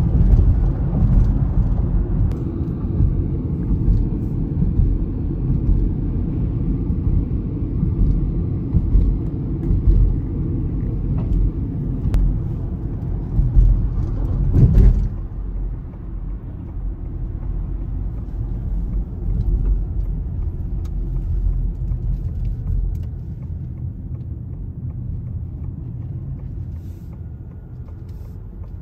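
Road and engine noise inside a moving car's cabin: a steady low rumble that eases off about halfway through as the car slows.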